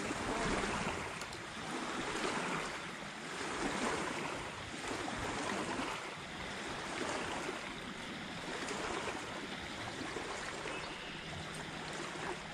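Fast-flowing current rushing and splashing past a boat's hull, with a steady wash that swells and eases every second or two.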